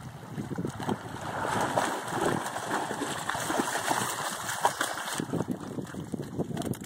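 German shorthaired pointer splashing through shallow river water while carrying a large log, the splashing loudest from about a second and a half in until it stops suddenly about five seconds in.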